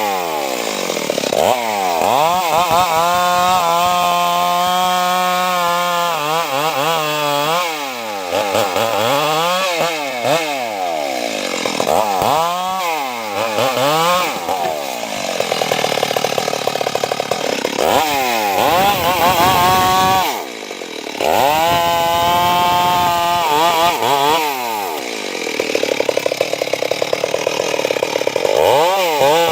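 Stihl chainsaw engine revving up and down again and again, held at high revs for a few seconds at a time while cutting into the tree, with a brief drop in revs about twenty seconds in.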